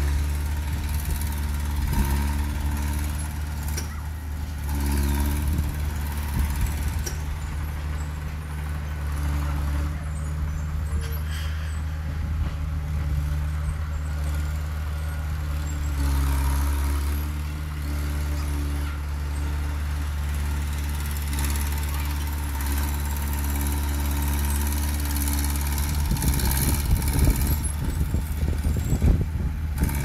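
Small crawler bulldozer's diesel engine running steadily under load as it pushes dirt. A stretch of louder, rougher rattling comes near the end.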